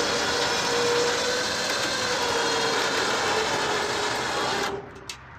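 Electric winch motor running steadily under load, pulling the Envoy onto the trailer, then cutting off suddenly near the end.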